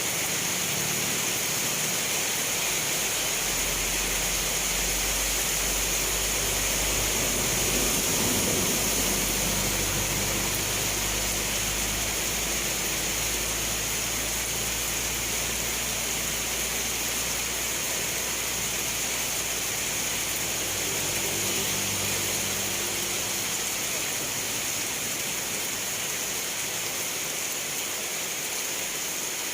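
Steady heavy rain falling, a dense even hiss. A low rumble sits underneath from about four seconds in until about halfway through, and returns briefly later.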